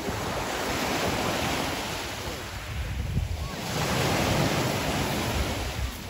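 Sea surf breaking and washing up over a pebble beach in a rough, choppy sea, swelling twice as one wave follows another.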